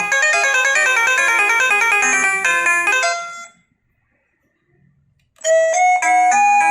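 Electronic doorbell chime playing a quick, busy melody that fades out a little past three seconds in; after about two seconds of silence a second doorbell tune starts with slower, held notes.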